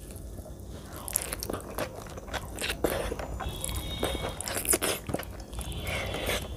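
Close-miked eating sounds: a person biting and chewing food eaten by hand, with irregular crunches.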